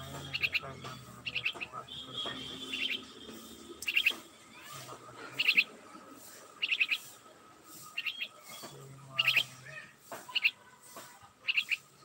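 A myna chirping, giving short clusters of high chirps about once a second, with a held higher whistle twice in the first three seconds.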